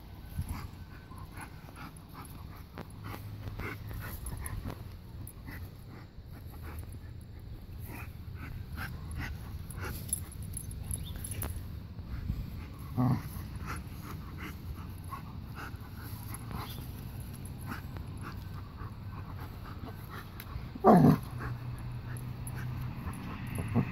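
A dog whining and yipping as it plays, with a short yip about halfway through and a louder, longer whine near the end that falls in pitch. Between them come steady small clicks and rustles as it works at something in the grass.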